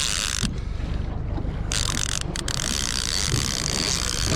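Wind buffeting the microphone on an open fishing boat: a steady low rumble with gusts of hiss that come and go, the main gust starting a little under two seconds in.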